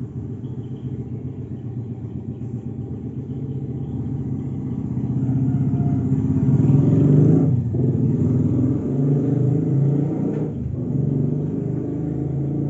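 Domestic village cat purring loud and steady, a low, fast-pulsing rumble, as it is stroked. The purr briefly dips about seven and a half and ten and a half seconds in.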